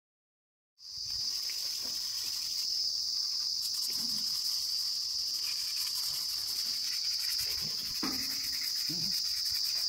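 Insects trilling steadily at a high pitch, cutting in abruptly about a second in, with a few faint scrapes and knocks from hands working on a steel frame.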